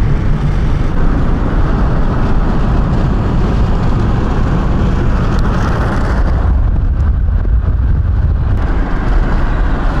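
Car driving at speed on a highway, heard from inside the cabin: a steady rumble of engine and tyre road noise with wind rushing past, turning deeper for a couple of seconds after the middle.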